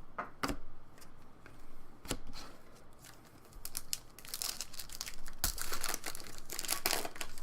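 Hockey card pack wrapper being torn open and crinkled by hand: a few sharp clicks in the first two seconds, then dense crinkling over the second half.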